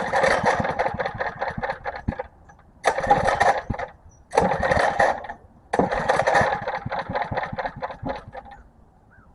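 Small pull-start engine cranked by its recoil starter in four separate pulls, each a burst of rapid chugging that does not catch and run: the engine fails to start.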